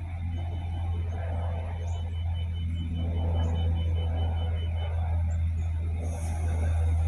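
Diesel engine of an Adelaide 3000/3100-class railcar running at a steady low idle. Through the first five seconds a rapid high beeping sounds, about four beeps a second.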